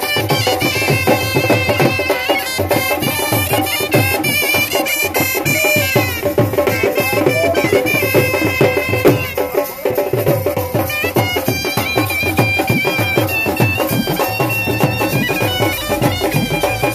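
Shehnai reed pipes playing a quick, ornamented folk tune together over a steady dhol drum beat. The music dips briefly about ten seconds in.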